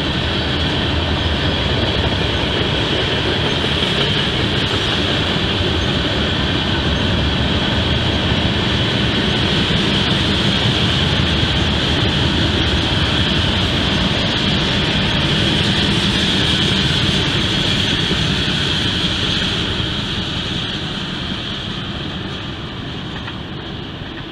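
Freight train of tank cars rolling past: a steady rumble of wheels on rail with a steady high-pitched hiss above it, fading over the last few seconds as the end of the train goes by.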